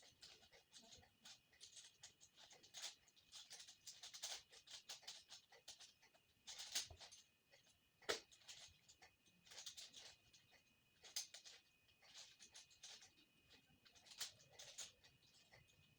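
Faint, irregular plastic clicking and clacking of a 5x5 Rubik's cube as its layers are turned, in quick runs with short pauses between them, over a faint steady high whine.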